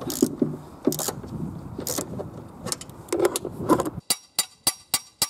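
Ratchet and socket clicking and metal clinking as the strut top-mount nut is tightened. About four seconds in, rapid ringing hammer blows on the steel front suspension, about four a second.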